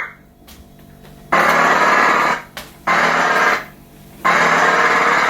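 Performer's live vocal sound effects: three long rushing noise bursts of about a second each, with short gaps between them.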